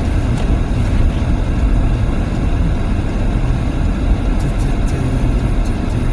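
Steady low rumble inside an all-wheel-drive car's cabin while driving on a snowy road: engine and tyre noise, with a few faint clicks.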